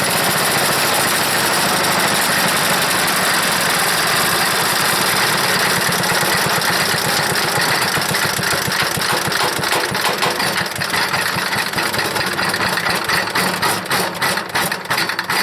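Old Briggs & Stratton single-cylinder horizontal-shaft engine on a wood chipper running loud and steady, then turning choppy and uneven about ten seconds in as it falters. The owner suspects a dirty, leaking carburetor.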